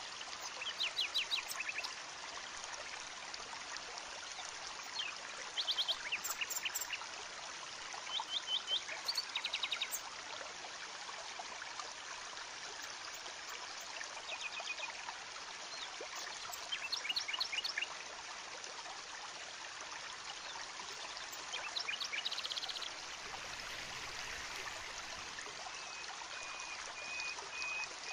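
Steady hiss like running water, broken every few seconds by short bursts of rapid chirping, with a thin held whistle near the end.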